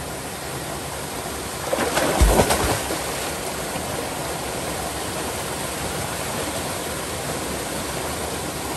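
Waterfall and stream water rushing steadily, with a brief louder disturbance and a low thump about two seconds in.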